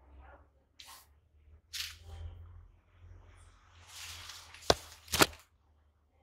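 Hands working with bonsai wire and tools: a few short rustling scrapes, then two sharp clicks about half a second apart, the loudest sounds.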